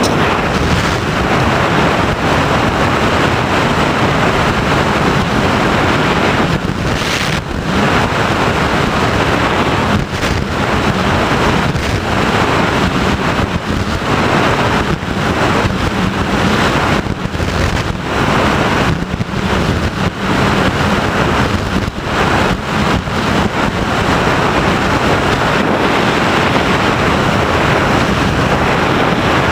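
Airflow rushing over the onboard camera's microphone of an FPV Raptor radio-controlled plane in flight, mixed with its motor and propeller: a loud, steady rush with short dips now and then.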